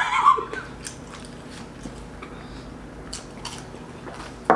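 Chewing and biting on fried snacks (samosa and batter-fried green chillies), with scattered soft crunching clicks and a sharper click near the end.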